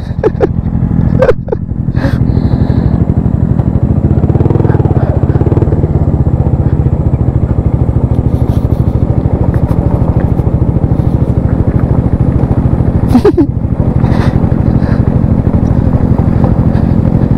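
Motor scooter engine running steadily under the rider at riding speed on a gravel road, its pitch rising and falling briefly about four seconds in. Two sharp knocks cut through, one early and one near the end.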